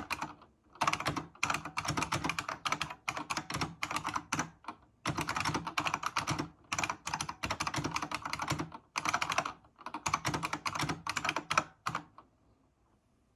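Typing on a Unicomp Mini M buckling-spring keyboard: rapid runs of clacking keystrokes with short pauses between them, stopping a little over a second before the end.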